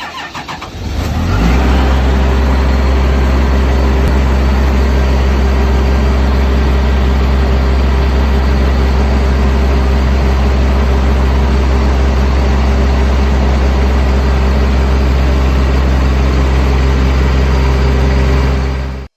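A vehicle engine being cranked, catching about a second and a half in, then idling steadily and loudly at an even pitch before cutting off suddenly near the end.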